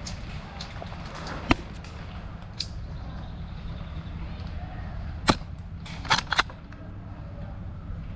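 Scattered airsoft gunfire: a single sharp snap about a second and a half in, a fainter one soon after, another near the middle, then a quick cluster of three shots, over a steady low rumble.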